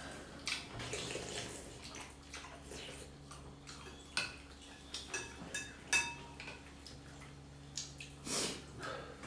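Bowls of chicken thukpa noodle soup being eaten: wet slurps of noodles and broth, with spoons and forks clinking against ceramic bowls, the sharpest clink ringing briefly about six seconds in.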